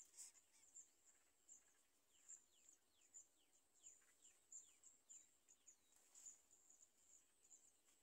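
Near silence with faint, high bird chirps, and a run of short falling whistle notes about two to five seconds in.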